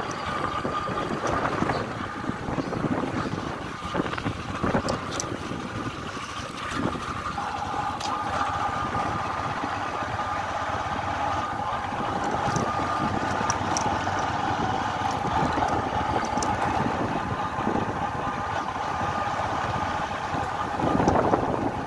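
Motorcycle engine running as the bike rides along a rough dirt track, with a steady whine and a second, lower whine joining about seven seconds in. Scattered clicks and knocks come from the bumpy ride.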